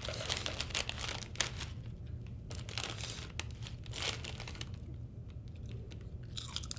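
Crinkly snack-chip bag being handled, with scattered crackles of the plastic.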